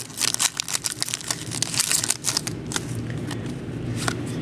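Football trading cards and pack wrappers being handled: rapid crinkling and sharp clicks that thin out after about three seconds.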